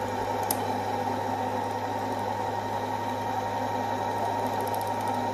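Husqvarna Viking Jade 20 electronic sewing machine's motor running at a steady speed, with a constant hum as it drives the bobbin winder to fill a bobbin.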